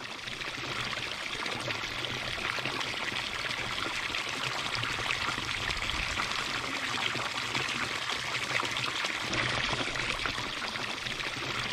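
Running water pouring steadily, a continuous even splashing that fades in over the first second.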